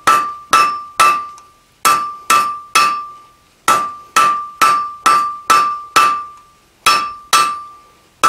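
Hand hammer striking a red-hot steel bar on an anvil, drawing out a taper: about twenty blows in short runs of two to three a second with brief pauses, each with a clear ring at the same note.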